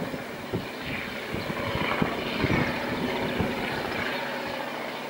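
Diesel-electric locomotive DA 1431 working hard up a steep grade, a steady engine drone, with a few gusts of wind buffeting the microphone.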